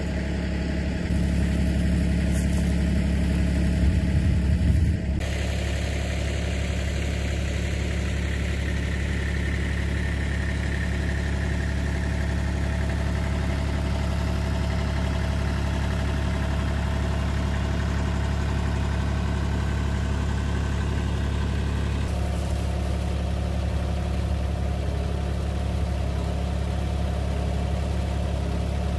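Bad Boy compact diesel tractor engine idling steadily.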